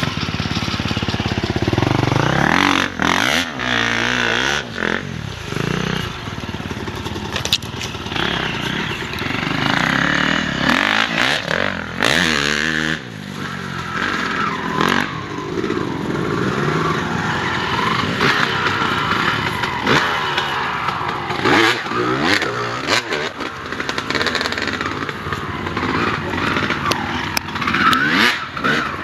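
Off-road enduro motorcycle engine being ridden through woods trails, revving up and falling back again and again as the rider works the throttle and gears, with scattered knocks and clatter from the bike over rough ground.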